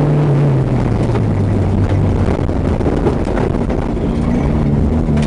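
Vehicle engine running while driving on a dirt road, heard from inside the vehicle under rumbling road and wind noise. The engine note drops about a second in, holds steady, then climbs again near the end.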